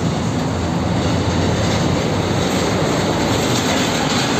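Steady highway traffic noise: diesel truck engines and tyres on the road, with a container semi-trailer truck passing close by, its tyre hiss a little stronger in the second half.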